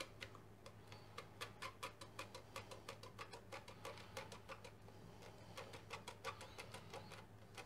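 Faint, quick irregular clicks and creaks of a small glass plasma globe being twisted and wiggled loose from its black plastic base.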